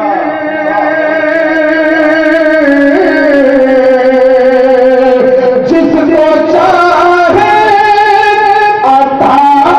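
Devotional naat singing: long, drawn-out melodic notes held without words, stepping and gliding from one pitch to another.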